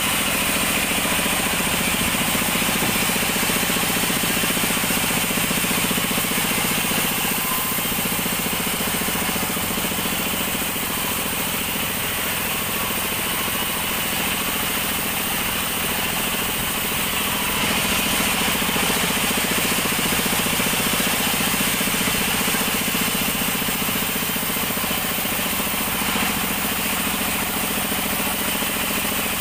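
Sawmill band saw running steadily while it rips an acacia log lengthwise: a continuous machine drone mixed with dense sawing noise, growing a little louder for a few seconds near the start and again after the middle.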